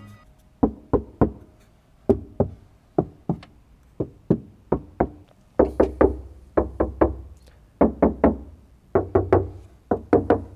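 Knuckles rapping on a Volkswagen Passat B5 front door's sheet-steel skin in quick groups of two to four knocks, testing the panel partly covered with self-adhesive bitumen deadening mats. Some of the groups carry a dull low thud.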